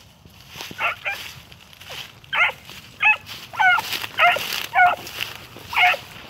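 Beagle hounds baying while trailing a rabbit: about seven short, yelping bawls, the first about a second in and the rest coming roughly every half second.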